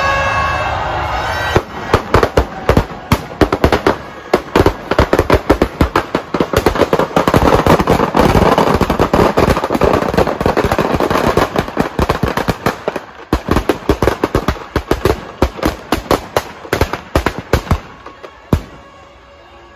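Firecrackers packed inside a burning Ravana effigy going off in rapid strings of sharp bangs, thickening into a continuous crackle in the middle and thinning out near the end. Music plays for the first second and a half, before the bangs start.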